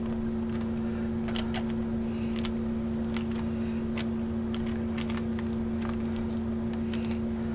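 Steady background hum with two constant tones over a low rumble, with scattered faint clicks and taps.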